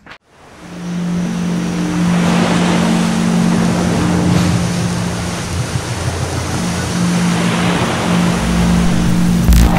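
Small ocean waves washing onto a sandy beach, a steady rushing surf that fades in about half a second in. A steady low drone runs underneath, and a low thump comes near the end.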